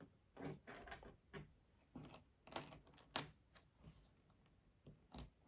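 Plastic pieces of a 4x4 Rubik's Cube clicking faintly and irregularly as they are fitted into place, about nine small clicks.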